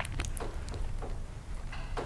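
A few short clicks in the first half-second and fainter ones after, over a low steady rumble.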